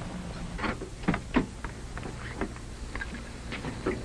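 A low, steady car hum, as of an engine idling at a roadside traffic stop, with a few short, irregular knocks and steps, such as a car door and footsteps on the road.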